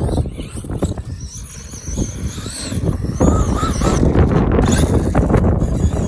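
Wind buffeting the microphone, with the high whine of a brushless electric RC car motor gliding up and down with the throttle.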